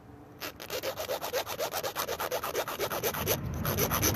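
A hand saw cutting through a brake line: quick, even back-and-forth scraping strokes, about seven a second, starting about half a second in.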